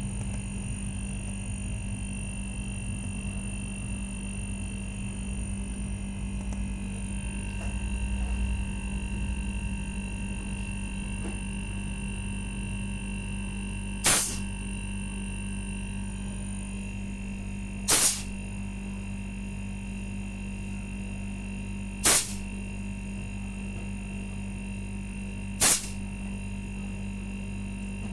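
Steady low hum with a faint high steady tone, broken about halfway through by four short, sharp bursts roughly four seconds apart.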